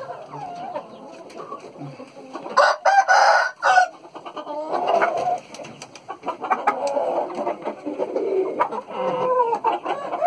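Thai gamefowl in a pen clucking and calling, with one loud crow of a bit over a second about three seconds in.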